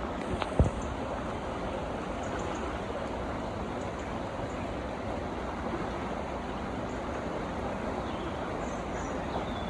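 Water rushing steadily down the brick-walled mill channel beside a waterwheel, with a single sharp knock about half a second in.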